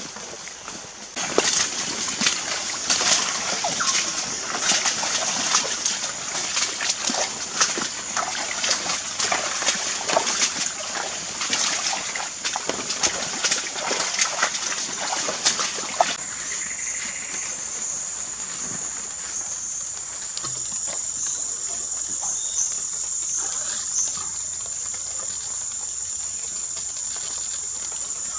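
A dense, irregular patter of splashy taps and clicks for about fifteen seconds, which stops suddenly. A steady high insect trill runs beneath it and carries on alone afterwards.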